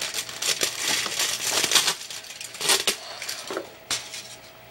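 Aluminium foil crinkling and crumpling as it is handled, in irregular crackles that thin out near the end.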